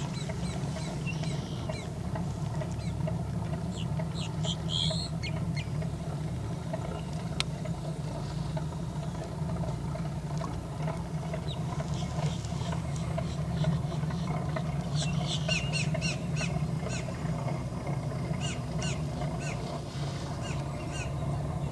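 Outdoor ambience: a steady low rumble with birds chirping over it in many short, high calls, sparse at first and busiest over the last third.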